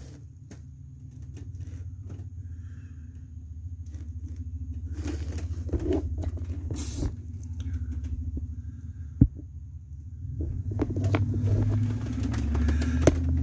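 Scattered clicks, knocks and scrapes of hand work on the parking-brake clips of a rear drum brake, with a sharp click about nine seconds in and a louder one near the end. A steady low hum runs underneath.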